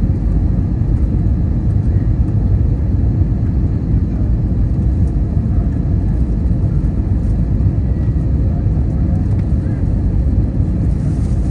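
Steady low rumble inside the cabin of an Airbus A320neo airliner during landing: engine and airflow noise, even throughout with no sudden events.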